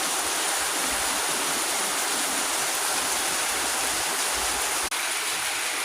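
Steady heavy rain: an even, dense hiss of falling and running water.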